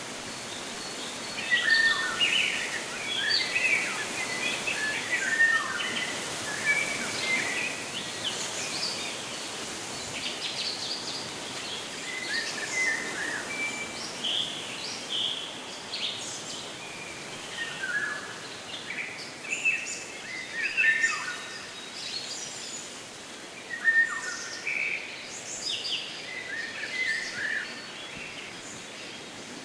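Several birds chirping and calling in short, overlapping phrases, over a steady background hiss.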